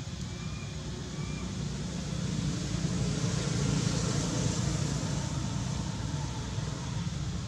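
Steady outdoor background rumble and hiss that swells for a couple of seconds midway, with a few faint short chirps in the first second or two.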